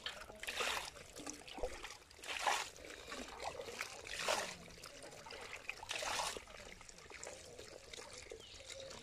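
Water splashing and pouring in four short bursts a second or two apart, over a low trickle, as small fish and water are scooped with a metal bowl from the shallow water of a netted fish trap.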